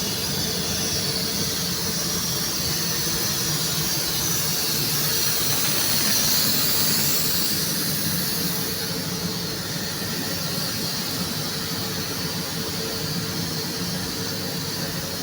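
Steady workshop machinery noise: a continuous hum and hiss with a held whine, swelling slightly about six seconds in.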